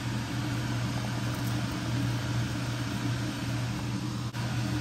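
Steady low hum of a running fan motor.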